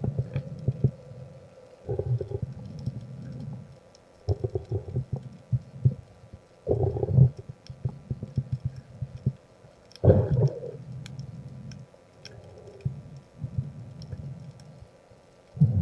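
Muffled underwater rumbling and bubbling, heard through a camera's waterproof housing, comes in irregular bursts every second or two, with faint scattered clicks. It is the noise of a diver's bubbles and of the fish being handled on the stringer.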